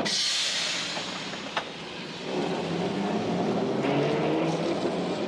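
Melbourne W-class tram passing on a wet street. A hiss opens it and fades, then from about two seconds in comes the tram's low rumble with a slowly rising motor whine.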